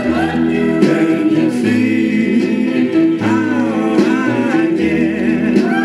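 A 1950s rhythm-and-blues vocal-group record playing on a Webcor portable hi-fi: group singing over held chords and a bass line that steps from note to note about once a second.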